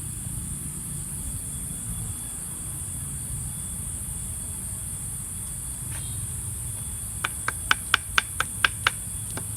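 Steady high-pitched insect chorus, likely crickets, with a low rumble beneath. About seven seconds in comes a quick run of about eight sharp, pitched chirps, roughly five a second, and two more near the end.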